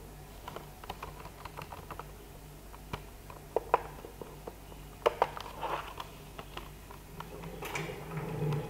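Sparse clicks and taps of a computer keyboard and mouse, a few of them sharp, over a faint steady low hum.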